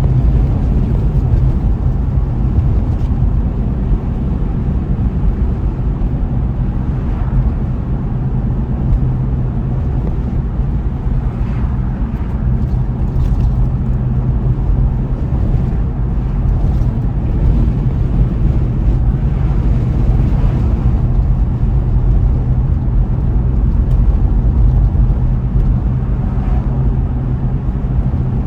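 Car driving steadily along a road: a continuous low drone of engine and tyre noise, with a few faint ticks and knocks.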